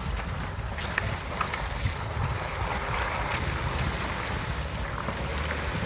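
Jeep Wrangler driving slowly off a river-stone bank into a shallow creek: a low engine rumble, tyres crunching over loose stones and water splashing around the front wheels, with wind buffeting the microphone.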